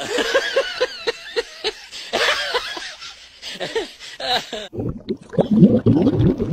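A person laughing in quick repeated bursts, with higher voice sounds above. About two-thirds of the way through the sound changes suddenly to a louder, lower voice-like sound that rises and falls.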